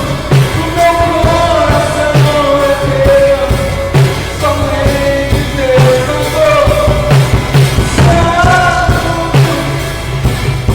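Live worship song: a male voice singing a slow melody with acoustic guitar over a drum kit that keeps a steady beat with kick drum and cymbals. The sound is recorded on a phone's microphone.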